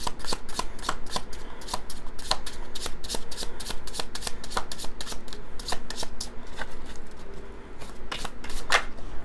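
A deck of tarot cards being shuffled by hand: a rapid, even run of soft card slaps and clicks, several a second, as the deck is worked before a card is drawn.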